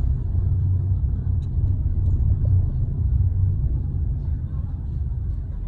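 Low, steady rumble that eases off near the end.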